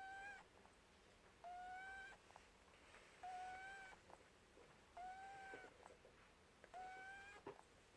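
Pet rabbit snoring in its sleep: a faint, steady whistling tone with each breath, five times, about every second and a half, with soft clicks between the whistles.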